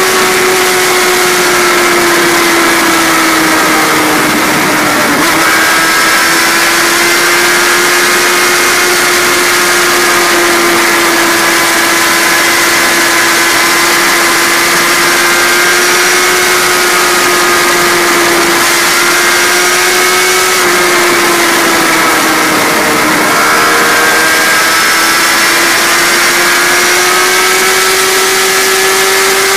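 Kawasaki Ninja ZX-10R's inline-four engine running at high revs at speed, its pitch climbing slowly and dipping briefly twice, about four seconds in and again a little past twenty seconds. Heavy wind rush on the microphone runs under it.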